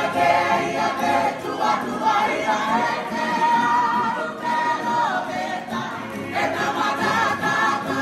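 A group of voices singing loudly together with strummed ukuleles, holding long notes. The singing breaks off briefly about six seconds in and then comes back in.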